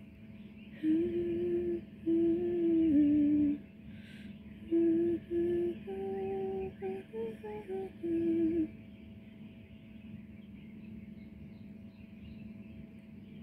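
A person humming a slow tune in long held notes, in several short phrases, then stopping about nine seconds in.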